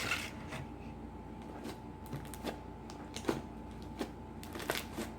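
Foamy homemade slime made with shaving foam being squeezed and worked by hand, giving irregular small pops and crackles.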